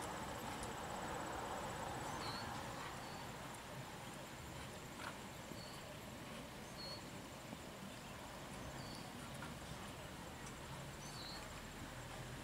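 Faint hoofbeats of a German Sport Pony moving on sand arena footing, with short high chirps every second or two and a steady high insect buzz behind them.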